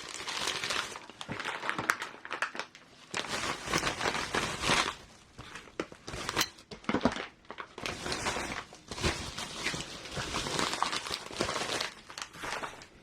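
Bubble wrap and plastic packaging crinkling and rustling in irregular handling bursts as parts are put back and the kit box is rummaged through.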